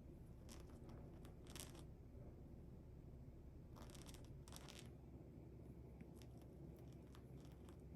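Near silence: room tone with a few faint, brief rustles and scratchy clicks.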